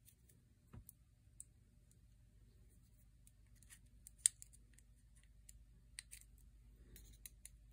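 Faint, scattered clicks and ticks of small metal trigger parts being handled by fingers, with one sharper click about four seconds in.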